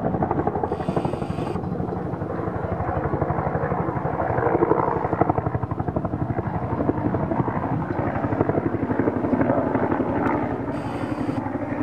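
Bell UH-1 'Huey'-type helicopter flying overhead: the steady, rapid beat of its two-blade main rotor over the turbine.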